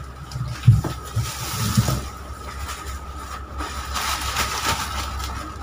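Wheat flour (atta) pouring out of a 10 kg plastic sack into a steel storage drum: a rushing hiss with a few dull knocks, the sharpest under a second in. From about four seconds in the emptied plastic sack rustles as it is shaken out over the drum.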